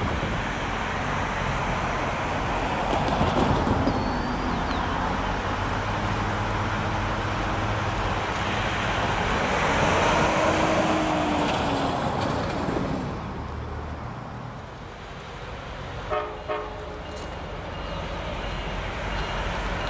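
Diesel locomotives running at a standstill: a steady low engine rumble under a broad rushing noise that swells twice, with a couple of short sharp sounds near the end.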